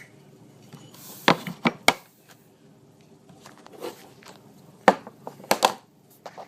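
Handling of a brass Zippo-style windproof lighter as its insert is taken out: sharp clicks and knocks, four close together about a second in and another cluster about five seconds in.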